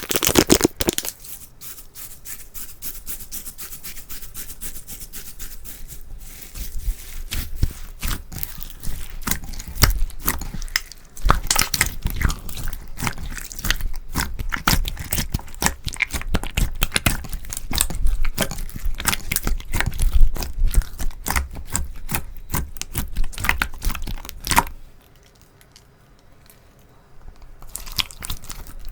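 Slime being squished and kneaded by hand, making dense, irregular crackling and popping clicks. It goes briefly quiet for about two seconds near the end, then the clicking starts again.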